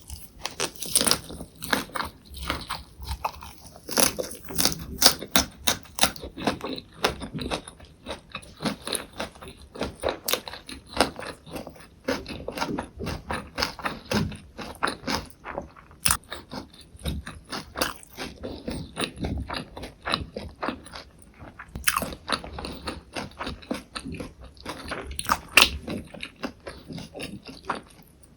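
Close-miked chewing of a lettuce and perilla-leaf wrap filled with tofu and gochujang: steady, irregular crunching and wet crackling of fresh leaves, with a few sharper crunches.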